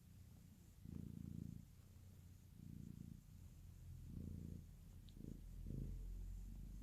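Domestic cat purring faintly, the purr swelling and fading with each breath.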